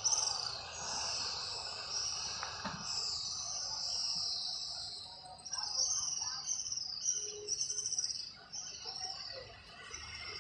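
Small birds chirping and twittering: a run of quick, high repeated chirps and short trills, over a steady background hum.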